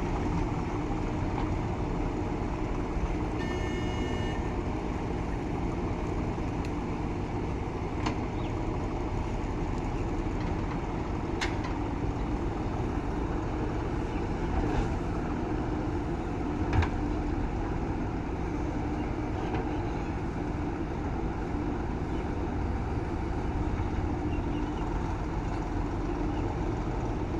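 Diesel engine of a JCB 3DX backhoe loader running steadily under work, with a few scattered knocks and a sharp thump about two-thirds of the way through. A brief high beep sounds a few seconds in.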